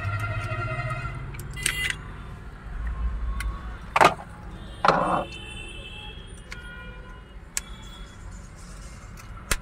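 Hands handling the plastic parts of a steering column around the exposed horn spiral cable (clock spring): scattered light clicks, with two louder knocks about four and five seconds in.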